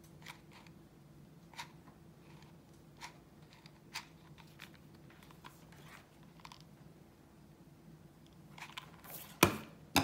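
Quiet handling sounds of a hot glue gun and felt mask pieces on a table: scattered small clicks and soft rustles over a faint steady hum, with a sharper knock about nine seconds in.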